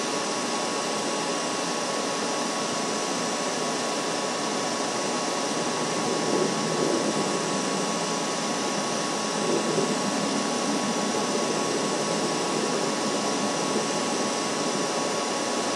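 Steady rushing noise picked up by an outdoor nest-camera microphone, with a thin steady tone running through it. It swells slightly twice, about six and ten seconds in.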